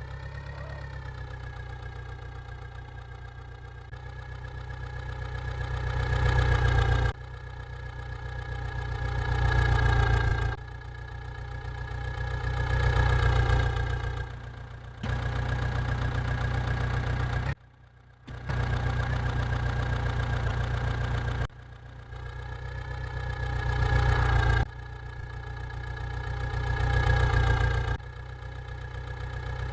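Engine running with a steady drone and heavy low rumble, repeatedly building in loudness over a few seconds and then dropping off abruptly. There is a short break in the middle.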